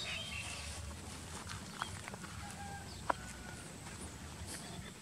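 Outdoor ambience: a steady low rumble with a few short, high chirping animal calls, and two sharp clicks about two and three seconds in.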